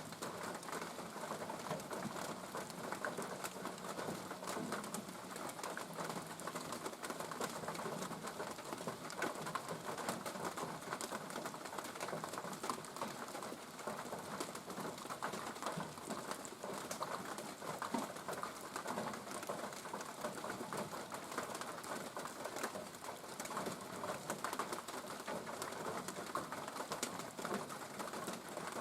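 Steady rain falling, an even patter of many close drops.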